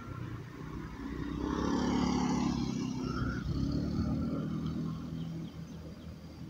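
A road vehicle passing by: its engine and tyre noise swell to a peak about two seconds in, then fade away.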